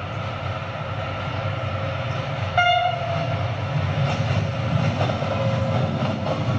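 Passenger train running, a steady rumble that grows slightly louder, with a short horn note about two and a half seconds in.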